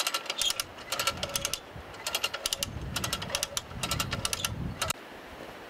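Ratchet of a hand wire stretcher clicking in quick runs as the top strand of a barbed-wire fence is pulled tighter. The clicking stops suddenly about five seconds in, leaving a steady hiss.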